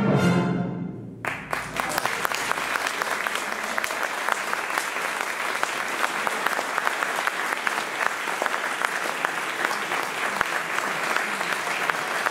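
A concert band's final chord dies away, and about a second in audience applause breaks out and carries on steadily.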